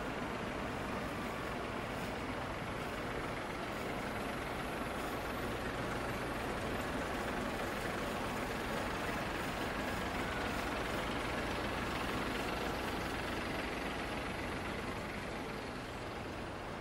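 City bus passing close by with its engine running, over steady street traffic noise.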